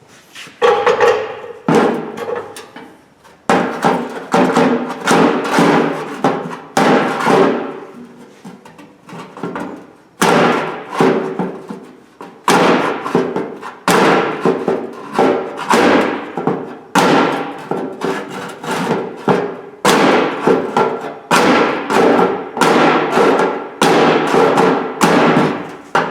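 Repeated hammer blows knocking a dent out of the sheet-steel body of an old Craftsman toolbox, each strike followed by a fading metallic ring. The blows come irregularly, often one or two a second, with short pauses between runs.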